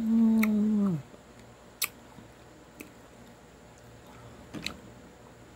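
A woman's closed-mouth hum, 'mmm', held steady for about a second and dropping in pitch as it ends, while she eats ponkan mandarin segments. After it, a few faint mouth clicks and smacks from chewing the fruit.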